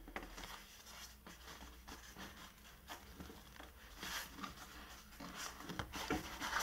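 Hands scraping and rubbing on a cardboard box while working its lid loose: faint scratchy rustling with small knocks, a little louder about four seconds in and again near the end.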